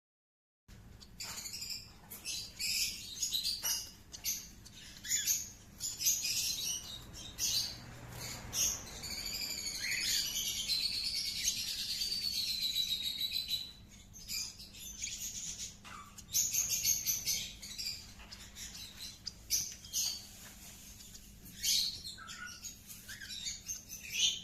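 Small pet parrots chirping and chattering: many quick high calls, with a longer wavering warble in the middle.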